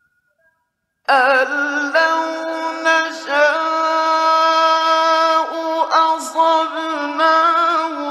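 A male Quran reciter chanting in the drawn-out, melodic mujawwad style. After about a second of silence he begins a long, high held phrase, ornamented with wavering turns and broken by a few short breaths or pauses.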